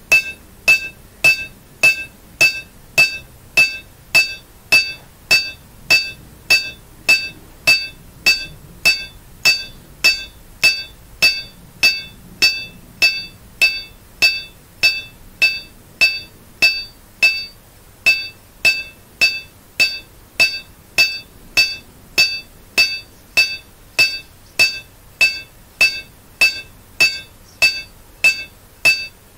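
Hand hammer striking a wrought iron dagger blade on an anvil, each blow ringing off the anvil, at a steady two blows a second with one short pause just past halfway. This is hammer hardening, cold-working the blade's edges.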